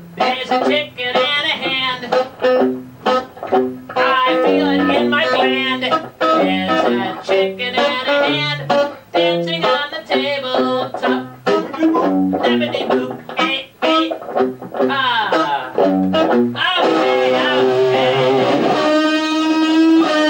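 Guitar music: a fast run of short plucked notes, giving way near the end to longer held notes with wavering pitch.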